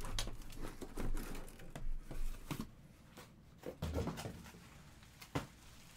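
Cardboard shipping case being handled and shrink-wrapped card boxes taken out and set down: scattered knocks and rustles, busier in the first half, with one sharp knock near the end.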